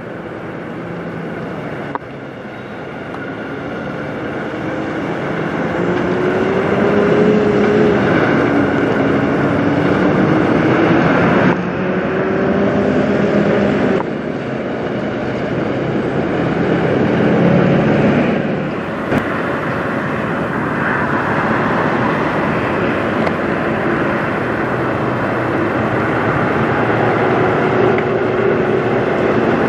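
International semi trucks' diesel engines pulling loaded trailers away, the engine note rising and dropping several times as they accelerate and shift through gears, over a steady road and trailer rumble. The sound changes abruptly a few times.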